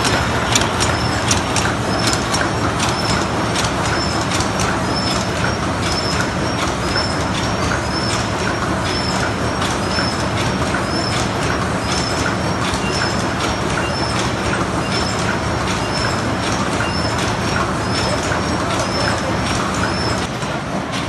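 ZSL-31 open-cam paper cup forming machine running: a steady mechanical clatter of rapid ticks, with a short high sound repeating about one and a half times a second.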